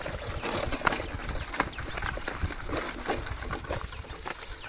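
Riding a bicycle on a rough road: wind rumbles on the microphone, with frequent sharp clicks and rattles.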